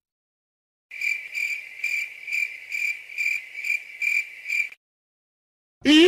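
Cricket chirping sound effect: evenly spaced high chirps, about two a second, for nearly four seconds. Near the end comes a short, louder shouted "yeet" sound effect.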